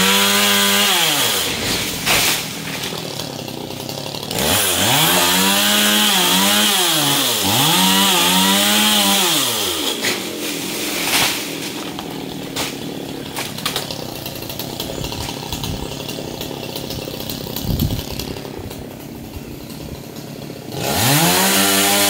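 Two-stroke chainsaw revving up and dropping back to idle several times: coming down from full speed at the start, two revs in a row from about five to ten seconds in, and another near the end, with a lower idle between.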